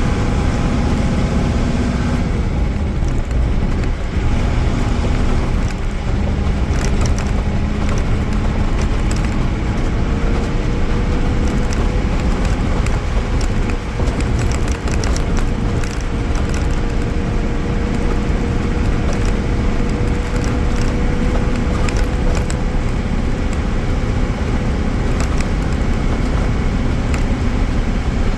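Mercedes-Benz OM-366A inline-six diesel engine of an OF-1318 bus running on the road, a steady drone whose pitch rises a little about ten seconds in and holds, with road noise and light rattles.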